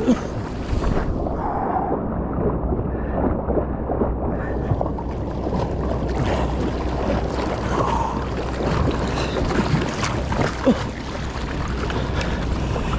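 Sea water sloshing and splashing close to a microphone held at water level, with surf breaking and wind rumbling on the microphone, as an inner tube is worked out through the waves.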